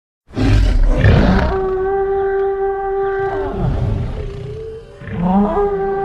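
Iguanodon vocal sound effect: a rough roar that opens into a long, steady, pitched call, then a second call about five seconds in that rises into the same held note.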